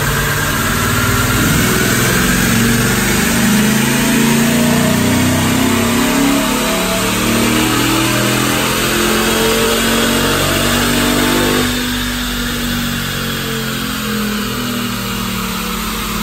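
Ford 6.2-litre gas V8 with Stainless Works headers and an 87-octane tune, run hard on a chassis dyno, its revs climbing through the pull. About twelve seconds in the sound drops back to a lower, steadier level.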